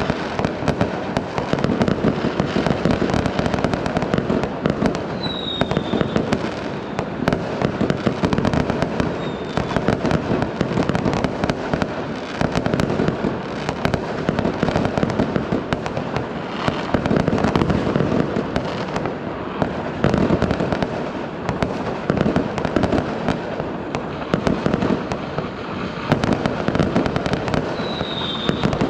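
Fireworks going off in a dense, continuous barrage of bangs and crackles, with a short high whistle falling in pitch about five seconds in and again near the end.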